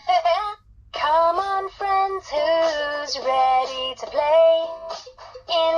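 Fisher-Price Linkimals electronic toys playing a recorded sung song with music through their small speakers. The singing breaks off briefly just under a second in, then goes on in held notes.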